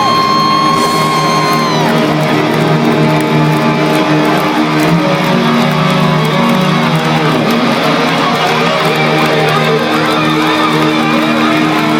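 Hard rock band playing live, with distorted electric guitars to the fore. A long held high note ends about two seconds in, and full guitar chords carry on after it.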